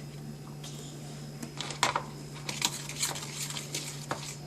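A spoon stirring sauce mix and water in a small bowl, clinking and tapping irregularly against the bowl.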